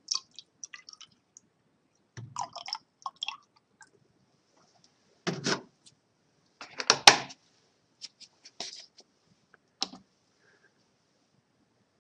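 Scattered clicks, knocks and brief splashes of labware being handled: water splashing as it is poured from a plastic jug into a graduated cylinder, and the plastic jug and glassware set down on the bench, the loudest clack about seven seconds in.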